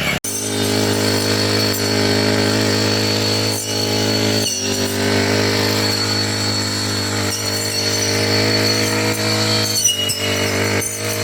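Four-stroke brush cutter engine running at a steady speed, with a high steady whine over it; the sound drops out for an instant just after the start.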